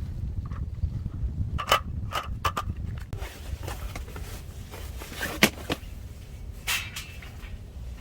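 Strong wind buffeting the microphone with a constant low rumble, broken by a few scattered knocks and clatters of gear being handled.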